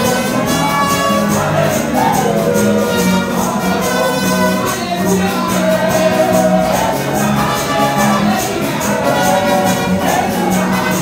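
Gospel singing through microphones over amplified band music, with a bass line and fast percussion keeping a steady beat.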